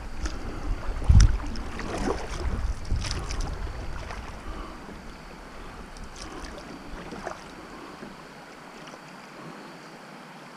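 Kayak paddling: the paddle blade dips and splashes in the water a few times, with low wind buffeting on the microphone over the first few seconds. After that it settles to a quieter, steady rush of water and wind.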